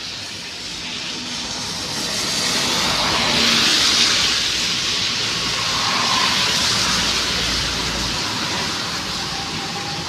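Road vehicle passing at speed on a highway: a rush of tyre and engine noise that swells to a peak about four seconds in, holds, then slowly fades away.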